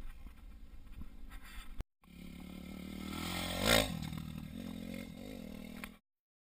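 Low wind-like noise, then a motocross bike riding on a dirt track: its engine builds, is loudest about halfway through as it passes, then falls away until the sound cuts off.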